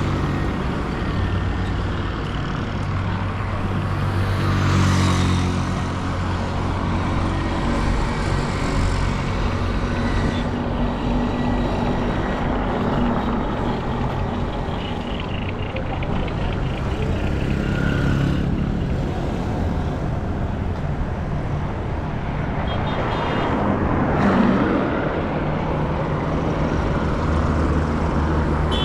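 Street traffic: vehicle engines running steadily, with vehicles passing close by about five seconds in and again near twenty-four seconds.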